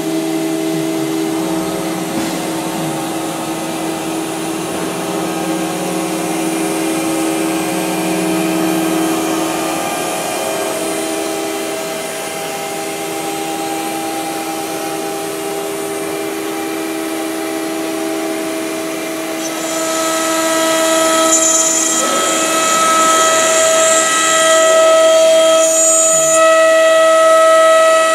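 CNC wood router spindle running at speed as it cuts a sheet of board: a steady whine made of several tones over a hiss. About twenty seconds in, a higher tone and a stronger hiss of cutting come in and the sound grows louder.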